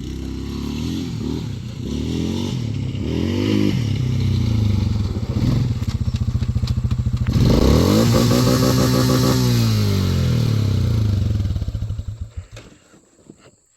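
Suzuki Vinson 500 ATV's single-cylinder four-stroke engine revving repeatedly, its pitch climbing and falling back several times, the longest rev about seven to ten seconds in; it drops away about twelve and a half seconds in.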